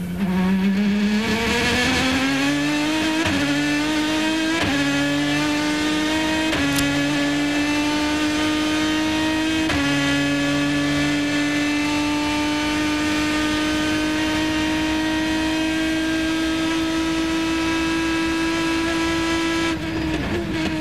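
Race car engine heard onboard, accelerating hard out of a corner: the note climbs and is broken by four quick upshifts about three, five, seven and ten seconds in. It then holds steady at high revs flat out down a long straight, and dips near the end as the driver lifts.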